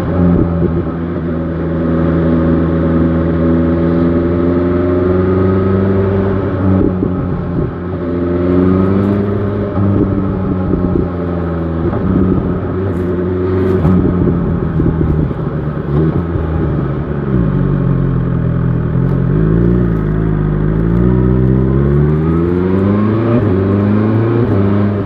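BMW S1000 XR motorcycle engine under way, its pitch rising and falling with the throttle. It holds fairly steady at first and drops off about six seconds in. From about sixteen seconds in it climbs steadily, with short dips at the gear changes.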